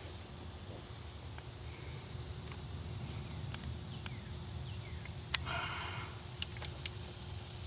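Quiet outdoor background with a faint, regular high-pitched chirping, and a few light clicks and taps. The sharpest click comes about five seconds in, followed at once by a short squeak.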